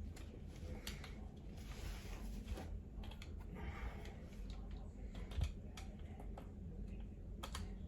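Faint scattered clicks and soft rubbing of handled plastic and metal parts as the Magpul bipod's tilt adjustment is tightened back up by hand.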